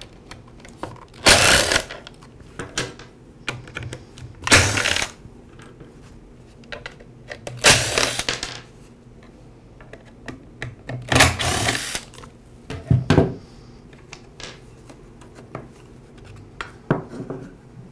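Cordless screwdriver whirring in short runs of about half a second to a second, four of them roughly three seconds apart and a shorter fifth, backing out the screws of a string trimmer's rear engine cover. Faint clicks of handling in between.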